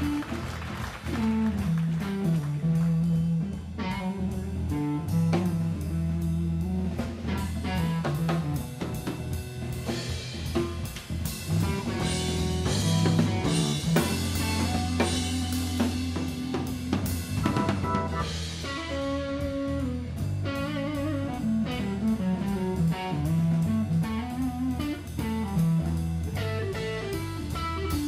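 Live jazz-funk band playing an instrumental groove: drum kit with snare and bass drum, an electric bass line, guitar and keyboards.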